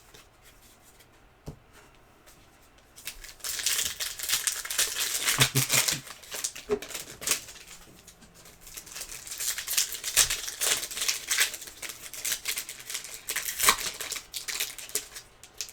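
Foil trading card pack wrappers crinkling and tearing as packs are opened and the cards handled, in dense crackly spells with many small clicks, starting about three seconds in after a near-quiet stretch.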